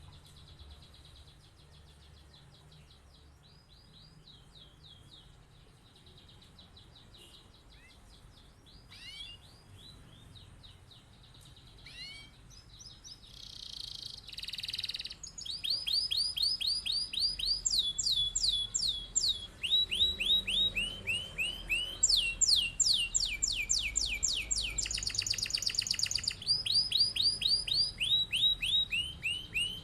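Male domestic canary singing: sparse, soft notes at first, then, from about halfway, a loud rolling song of fast trills, each a quick run of one repeated note held for a second or two before jumping to a new pitch.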